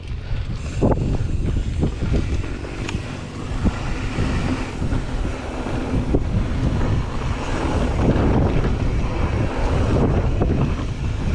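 Wind buffeting the GoPro's microphone while a 2016 Ibis Mojo HD3 mountain bike rides down dirt singletrack. Under the steady rumble come the hiss of tyres on dirt and a run of short knocks and rattles from the bike going over bumps.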